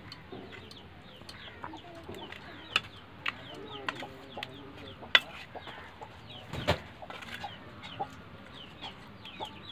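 Chickens clucking, with many short, high, falling peeps. Several sharp clinks of a metal spoon against an aluminium kadai cut through, the loudest about five and nearly seven seconds in.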